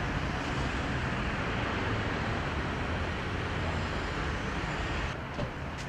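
Steady street traffic noise, a low rumble with hiss, which drops and loses its upper hiss about five seconds in.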